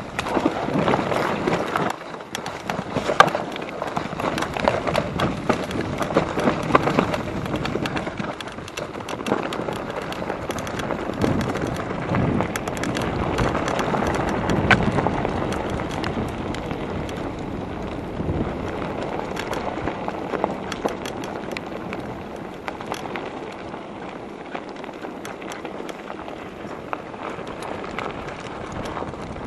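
Mountain bike riding over a rough dirt trail: tyre noise on dirt and stones, with the bike rattling and knocking over bumps. It gets somewhat quieter in the second half.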